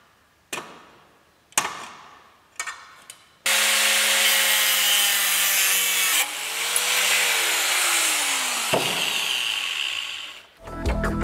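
A few sharp knocks, then an angle grinder with a cutting disc starts about three and a half seconds in and cuts through the steel jaws of a pair of tongs held in a vise. Its pitch sags as the disc bites, and it stops shortly before the end.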